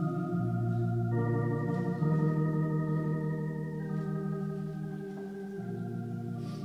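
Organ playing slow, sustained chords, moving to a new chord every second or two.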